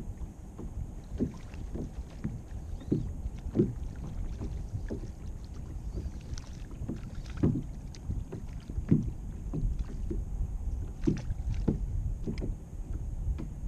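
Small waves slapping and lapping against a kayak's hull in irregular strokes about every half second to second, over a low steady rumble.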